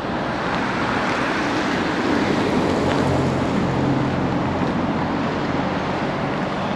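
Road traffic: a steady rushing of tyres and engine noise that swells in the middle with a low engine hum as a vehicle goes by, then eases off.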